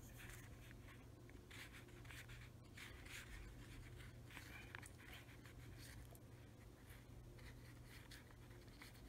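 Ink calligraphy brush stroking across a textured paper card: faint, soft brush-on-paper swishes in a series of strokes, over a low steady hum.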